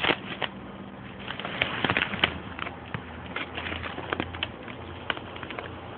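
Irregular clicks and knocks of a phone camera being handled and moved about, over a steady low hum.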